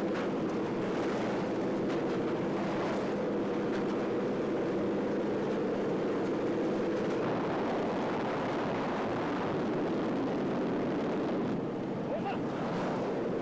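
Aircraft engine droning steadily in flight, heard from inside the cabin, with wind rushing past the open jump door.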